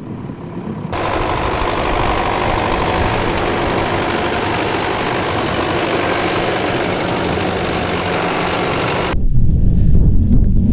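Steady engine and travel noise of a motor vehicle, which cuts off abruptly about nine seconds in and gives way to a louder low rumble of wind on the microphone.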